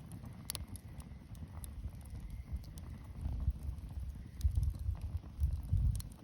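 Wood bonfire burning: a low, uneven rumble with scattered sharp crackles and pops, the sharpest about half a second in.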